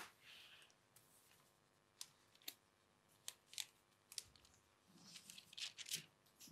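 Near silence: room tone with faint scattered clicks and, about five seconds in, a brief stretch of soft rustling, small handling noises.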